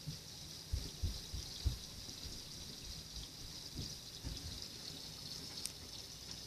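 Steady hiss of spring rain falling. A few soft low thuds come in the first two seconds and again about four seconds in.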